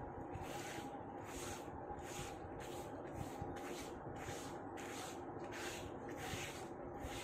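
A hand rubbing across a wet banana leaf, wiping the sprinkled water over its surface in about ten short swishing strokes, roughly one every 0.7 seconds. A faint steady hum sits underneath.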